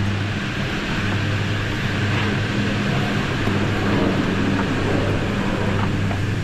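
Birds of Prey Express chairlift running: a steady low hum under a continuous broad rush of noise.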